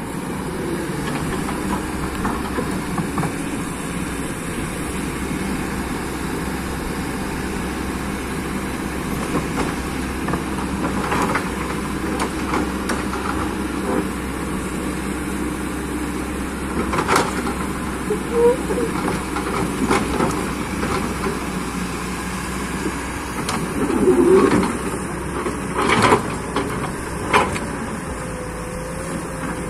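Excavator's diesel engine running steadily while it works, with a few short sharp knocks and clanks spread through the stretch.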